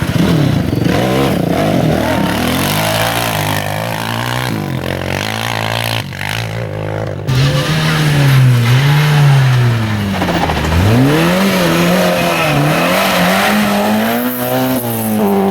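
Rally car engine driven hard, revving up and dropping again and again as it changes gear and takes corners.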